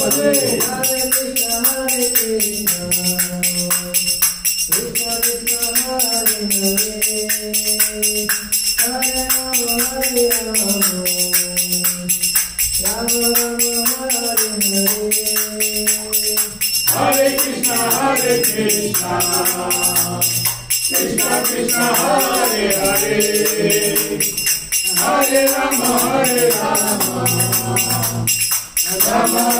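Devotional kirtan singing. For the first half a lead voice sings long held phrases, each about four seconds. From about halfway, a group of voices answers in fuller, layered phrases. Steady jingling percussion runs throughout.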